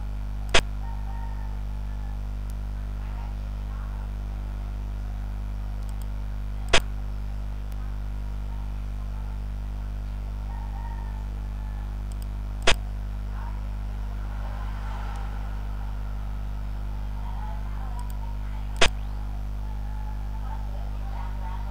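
Xiangqi (Chinese chess) program's piece-move click, sounding four times about six seconds apart as pieces are played on the board, over a steady low electrical hum.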